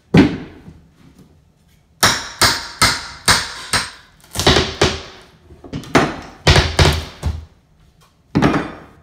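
Hammer blows on wooden floor framing, a series of sharp knocks coming in irregular bursts with pauses of a second or two between. The strikes knock out rotted, water-damaged framing wood.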